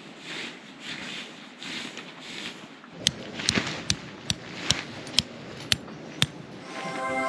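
Soft rhythmic scuffing, about one and a half strokes a second. About three seconds in it gives way to a run of sharp clicks roughly twice a second. Background music comes in near the end.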